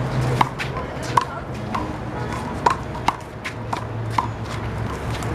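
One-wall handball rally with the big blue rubber ball: sharp slaps of hands striking the ball and the ball smacking the wall and court, several hits a second apart, over a steady low hum.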